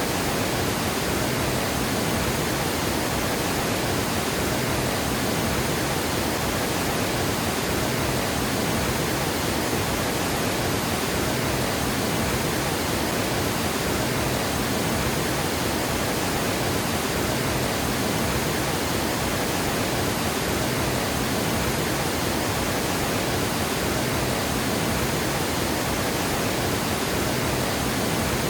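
Water pouring over a dam spillway: a steady, unbroken rush spread across all pitches, with no change in level.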